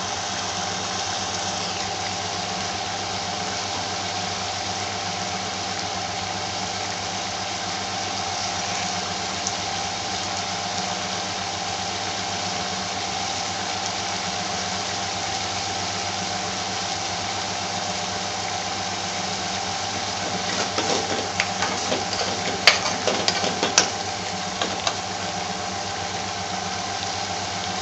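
Chicken madras curry simmering in a metal pan, bubbling, over a steady mechanical hum. About twenty seconds in comes a run of louder pops and spits as bubbles burst.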